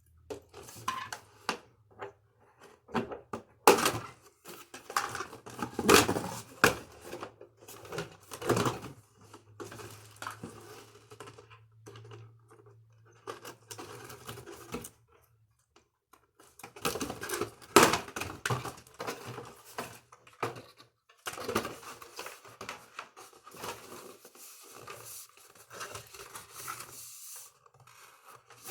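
A toy's packaging being opened by hand: irregular tearing, rustling and sharp clicks of packaging material, with a brief lull about halfway through.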